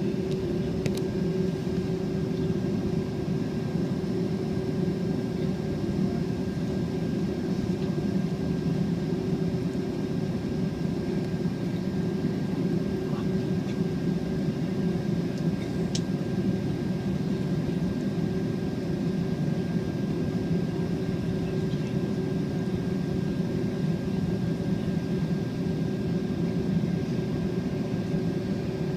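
Cabin noise inside a Boeing 767-400ER taxiing after landing: the jet engines at idle make a steady hum with a thin steady whine above it. Two faint clicks sound, about a second in and again about sixteen seconds in.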